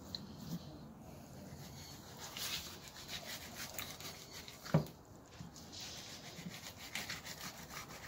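Knife scraping and slicing through a golden trevally fillet on a cutting board in short repeated strokes, with one sharp knock a little under five seconds in.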